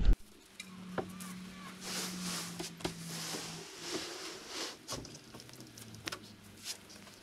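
A large sheet of T1-11 plywood siding being handled and carried, with a few light knocks and scraping of the wood panel. A faint steady hum sits underneath.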